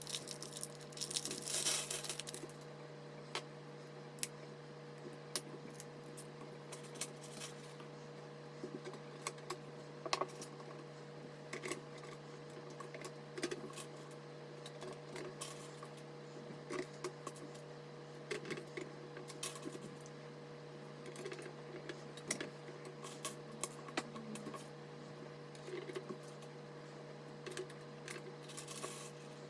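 Scattered light clicks and taps of small hard parts being handled during PC assembly, over a steady low hum, with a short rustling noise about a second in.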